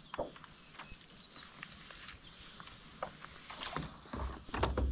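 Handling noises on a kayak: scattered light clicks and knocks, then a heavier cluster of knocks and low thumps near the end.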